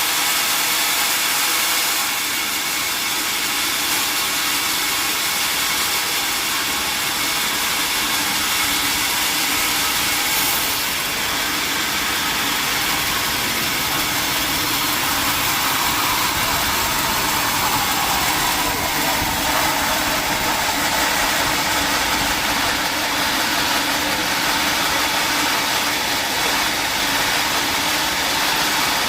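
Sawmill machinery running steadily, a continuous mechanical drone with hiss, with a faint tone that drops in pitch a little past the middle.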